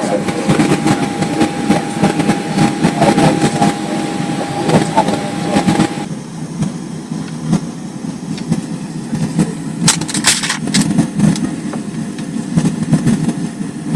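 Steady cabin noise inside a Boeing 737 on the ground in the snow, with engine and air-system hum. A steady tone cuts off about six seconds in, and a few sharp clicks come near ten seconds in.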